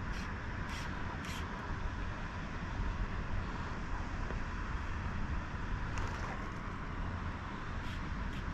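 Steady rushing noise of water pouring over a dam spillway, with a low, unsteady wind rumble on the microphone and a few faint ticks.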